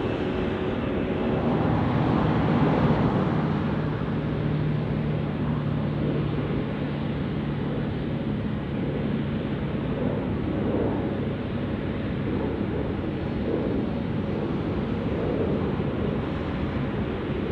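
Airbus A380 jet engines running at taxi power: a steady jet rumble, with a low hum through the first half.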